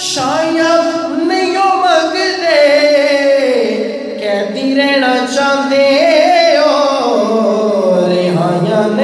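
A man singing a Punjabi naat, a devotional song in praise of the Prophet, solo into a handheld microphone. He holds long drawn-out notes that slide up and down in pitch.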